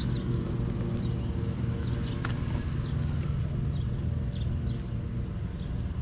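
1994 Pontiac Firebird Trans Am's LT1 V8 idling steadily with a low, rapid, even pulse.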